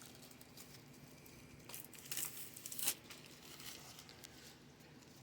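Plastic wrapping being torn off a boxed card set and crinkled: faint scattered rustling, with a cluster of louder crinkles and tears about two to three seconds in.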